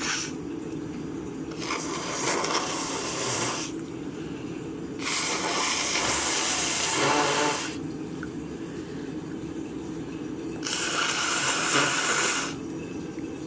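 A person's heavy breathing: three long, hissing breaths of about two seconds each, roughly four seconds apart.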